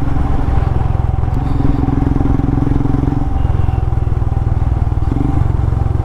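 Motorcycle engine running steadily on the move, its note growing stronger for a couple of seconds from about one and a half seconds in.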